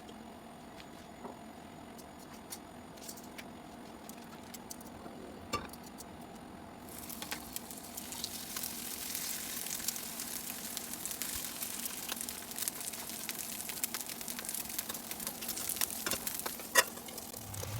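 Salmon frying in a hot pan, sizzling and spitting from about seven seconds in, with sharp pops. Before that there is a steady hum and a few clicks.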